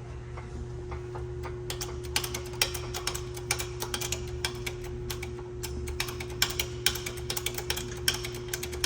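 Quick, irregular metallic clicks, several a second, starting about a second and a half in, as a makeshift press is tightened to push a half-shaft bearing assembly into place. A steady low hum runs underneath.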